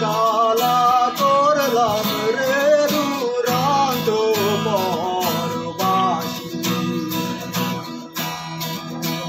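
A man singing a Bengali folk song in his bare voice to a strummed acoustic guitar. The voice stops about six and a half seconds in, and the guitar strumming carries on.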